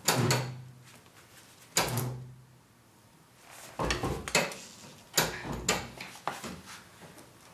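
A steel tire lever and an alloy wheel rim clanking and scraping as a stiff run-flat tire bead is levered on a tire changer. There is a sharp clank at the start, another about two seconds in, and a quicker run of knocks and scrapes in the middle.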